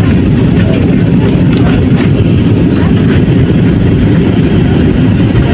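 Steady low roar inside the cabin of a jet airliner in flight, engines and rushing air running evenly without change.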